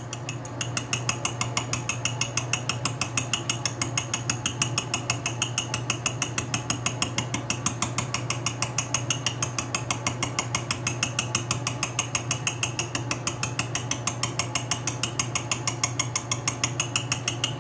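Rotating cutter on an Atlas lathe with a milling attachment, cutting bevel gear teeth with a slow feed. Each cutter tooth strikes the gear blank in an interrupted cut, giving a rapid, even ticking over the steady hum of the lathe.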